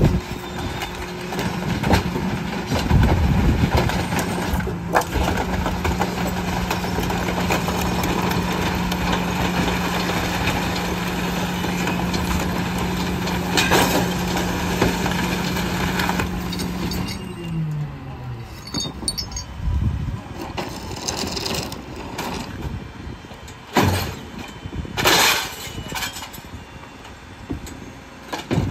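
Rear-loader garbage truck running a packer cycle. For about seventeen seconds the engine holds a steady raised speed under hydraulic load, with crunching and breaking noise from bulk junk being compacted, then it steps down to idle. A few sharp bangs follow as items are thrown into the hopper.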